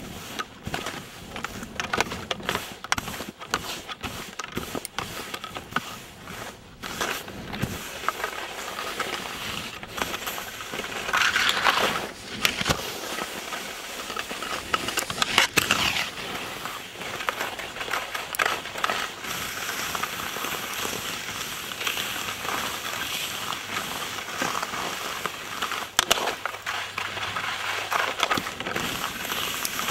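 Skis scraping and crunching over rough, tracked snow at speed: an uneven hiss with louder crunches now and then.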